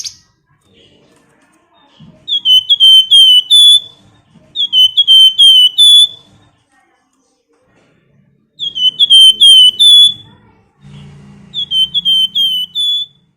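Malaysian pied fantail singing: four phrases of four or five quick, high whistled notes, each note hooked in pitch, the last note of each phrase a little higher and held longer.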